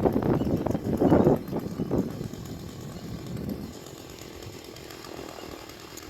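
Chainsaw running and revved in short surges for the first few seconds, then settling to a quieter, steady level.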